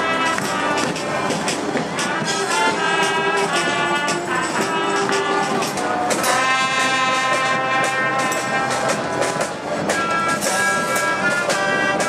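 Street brass band playing in a parade, horns such as trumpets and trombones over a beat of sharp hits, with a held chord in the middle.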